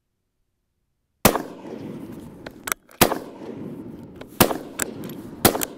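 Gunshots on a rifle range: a string of sharp reports starting about a second in, four loud ones a second or two apart with fainter ones between, over a steady background hiss.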